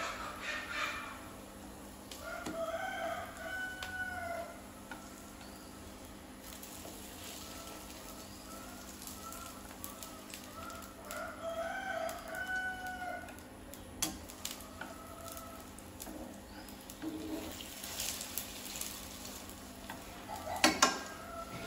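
A rooster crowing twice, each crow about two seconds long and roughly nine seconds apart, over the faint sizzle of batter cakes frying in oil in a pan. A few sharp clicks come near the end.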